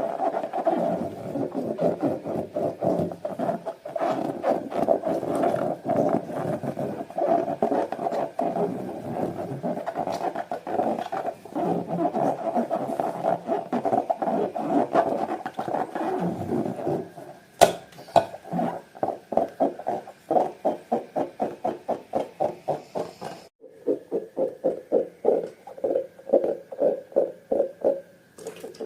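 Slime being kneaded and squeezed by hand: a dense run of sticky, crackling squelches that settles, about two-thirds of the way through, into an even rhythm of squishes, about three a second.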